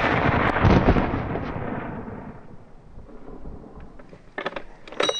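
A gunshot's report rolling away in a long echo that fades over about three seconds, followed near the end by a few sharp clicks.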